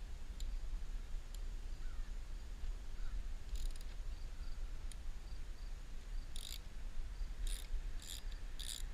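About five short raspy ratcheting bursts, each a fraction of a second long, from a 10 mm socket ratchet working a battery terminal nut, over a low steady rumble.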